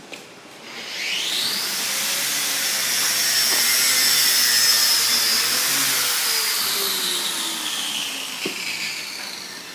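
Jet aircraft passing by: a high whine rises quickly about a second in, swells to its loudest mid-way, then falls slowly in pitch as it fades away.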